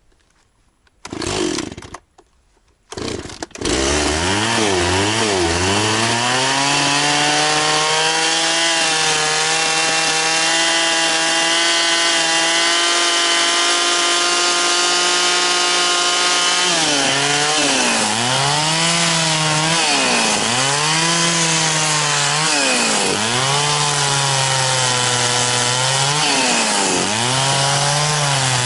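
Echo CS-670 two-stroke chainsaw being started: a few short bursts, then it catches about three and a half seconds in and keeps running. Its pitch wobbles at first, then holds steady, and over the last ten seconds or so it repeatedly dips and recovers.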